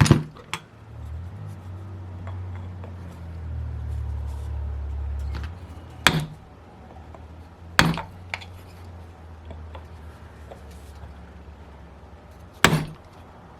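Sharp metallic clinks of tools against a model glow engine's case, four of them a couple of seconds apart, as a stuck rear cover is worked loose. A low rumble runs under the first five seconds and stops suddenly.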